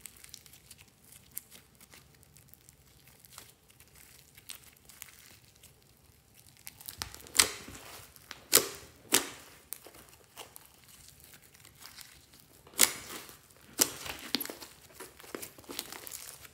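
Fluffy slime being squeezed and stretched by hand: soft sticky crackling, then from about seven seconds in a handful of loud, sharp pops as trapped air pockets burst.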